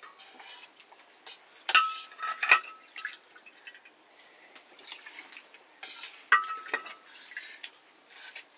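A utensil scraping and clinking against a plate while eating. There are several sharp clinks, the loudest about two seconds in and again past the six-second mark, and a few of them ring briefly like metal.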